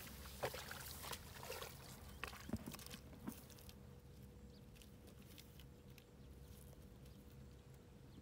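Footsteps squelching through wet mud, with a few sharp clicks, in the first three seconds, then faint outdoor quiet with scattered ticks and a faint steady hum.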